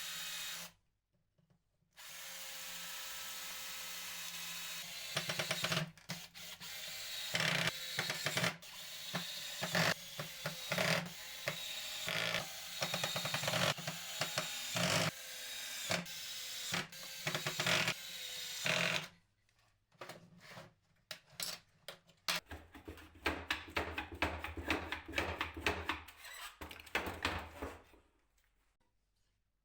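Handheld power tool working on wood. It runs steadily, cuts out briefly about a second in and restarts, then from about five seconds in comes in rapid, uneven surges, and later in short bursts before stopping near the end.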